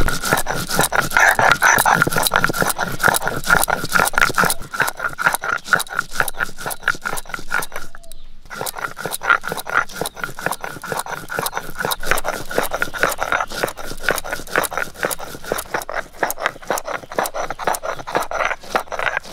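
Stone roller of a shil-nora (flat grinding stone) rubbed rapidly back and forth over seeds on the stone slab, crushing them to paste: a steady gritty scraping rhythm, with a brief pause about eight seconds in.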